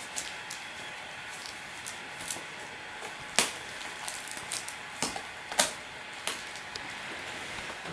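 Two kittens play-fighting over a fabric toy on a carpeted cat-tree platform: scattered light clicks and scratches from their claws and paws, two sharper ones about three and a half and five and a half seconds in, over a steady hiss.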